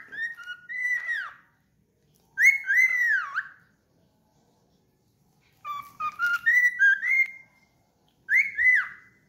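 Cockatiel whistling a short tune in four separate phrases, each about a second long with pitch slides up and down, and short silences between them.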